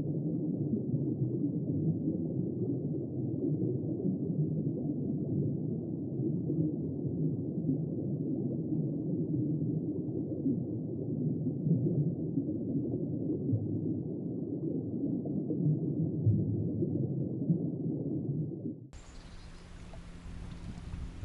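Muffled underwater noise from a camera submerged in a river: a steady low rumble and gurgle of water, with everything above about 1 kHz cut off by the housing. About 19 seconds in it gives way abruptly to quieter open-air riverbank ambience.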